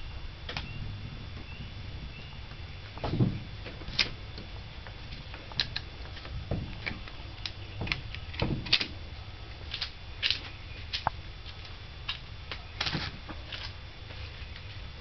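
Handling noise from a rubber grip being worked onto a shaft: irregular small clicks and taps with a few duller knocks, over a steady low hum.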